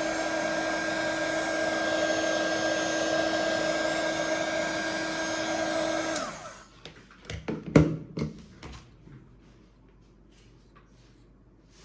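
Hot-air blower running steadily with a fan whine, heating the adhesive to free the phone's outer screen. About six seconds in it is switched off and its pitch falls as the fan winds down, followed by a few sharp clicks and knocks.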